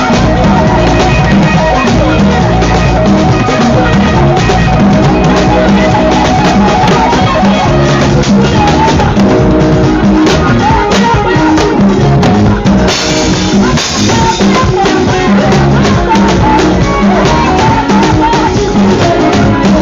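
Loud music with a steady drum beat and pitched instruments, with a brighter, noisier stretch about thirteen seconds in.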